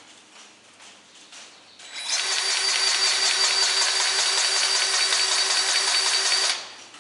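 Battery-powered grease gun running, pumping grease into a baler fitting: a steady motor whine that starts about two seconds in and cuts off about half a second before the end.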